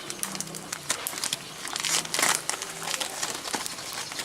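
Plastic packaging bag of loose Turkish tea crinkling and rustling in irregular bursts as it is handled and opened by hand.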